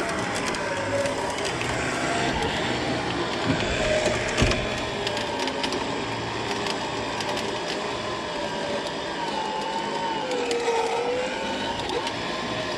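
An engine running steadily, its pitch drifting slowly up and down, with a few short crunches.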